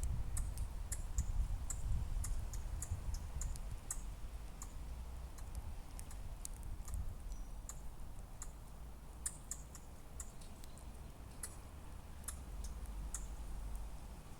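Squirrel giving a series of short, sharp clicking calls, several a second at first and more spaced out later, over a low rumble.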